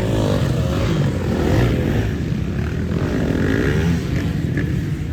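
Racing motorcycle engines revving, their pitch rising and falling over a dense low rumble of several engines running together.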